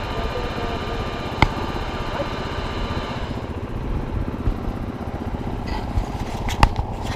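Enduro dirt-bike engines idling while the bikes stand still, a steady low engine note. A higher tone in the sound drops away about three seconds in, and there are two sharp knocks, one about a second and a half in and one near the end.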